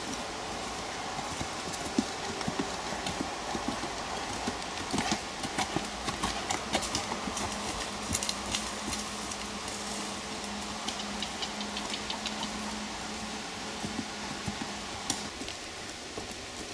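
Hoofbeats of a ridden horse moving at a canter on a dirt arena surface: an uneven run of dull thuds. A faint steady low hum sits under it through the middle part.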